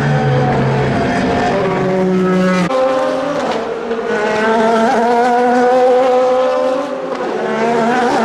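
Race car engines running hard on track, loud and continuous. Their pitch changes abruptly about two and a half seconds in and dips briefly near seven seconds.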